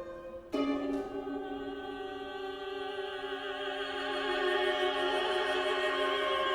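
Classical music with operatic singing: long held notes sung with vibrato over sustained orchestral tones, a new note coming in about half a second in.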